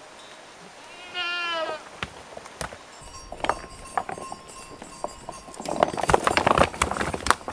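A pack goat bleats once, a wavering call lasting under a second, about a second in. From about three seconds, clicks and knocks of twigs and branches build into a dense crackle near the end as the goats pull at and browse the branches.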